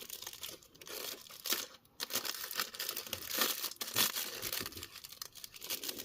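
Plastic packaging crinkling and rustling in irregular short crackles as an action figure's small accessories are taken out of it.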